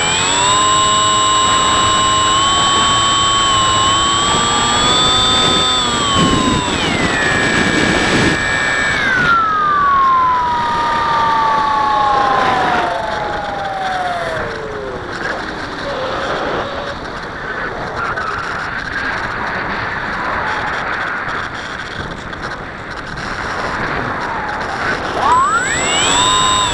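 Electric motor and propeller of a Bixler 3 FPV model plane, heard from its onboard camera: a steady high whine under power that rises a little, then winds down in pitch over several seconds as the motor slows. Air rushes past while it glides unpowered, and the whine climbs sharply again near the end as the motor spools back up.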